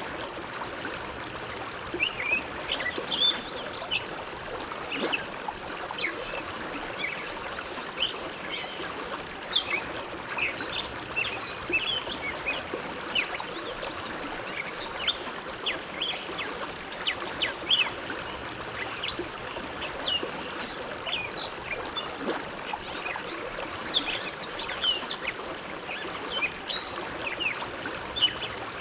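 Bow River flowing: a steady rush of water with many quick, irregular high bubbling and chirping blips throughout.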